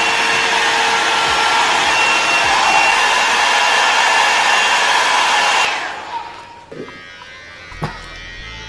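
Handheld hair dryer blowing steadily, then stopping about six seconds in; a single click follows near the end.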